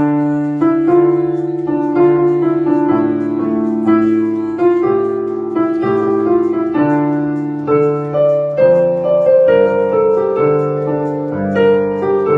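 Grand piano playing a slow piece, a melody of held notes over sustained low chords.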